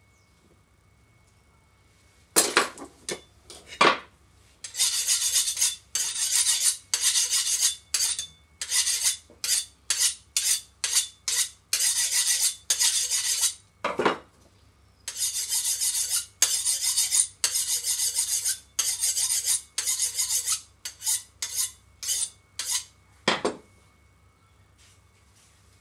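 A cleaver's blade drawn again and again along a steel sharpening rod, honing the edge: a run of quick metal scraping strokes, about one and a half a second, with one pause about halfway. A few sharp clinks of blade striking rod come where the strokes start, at the pause and at the end.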